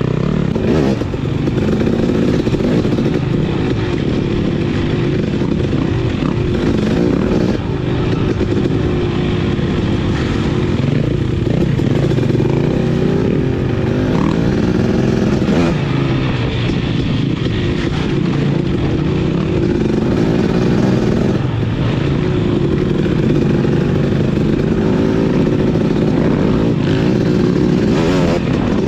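Two-stroke dirt bike engine, a Husqvarna TC250, running along a trail. Its pitch rises and falls continually as the throttle is worked.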